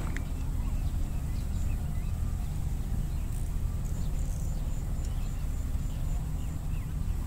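Wind rumbling on the microphone, steady throughout, with faint short chirps and a brief run of faint rapid high ticks about four seconds in.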